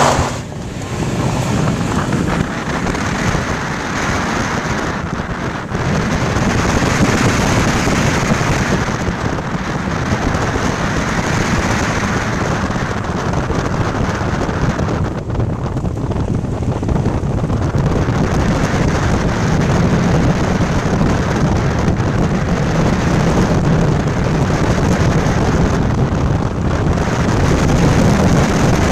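Heavy wind buffeting an outside-mounted camera microphone on a moving Mazda Miata, swelling and easing every few seconds, with the car's engine faint beneath it.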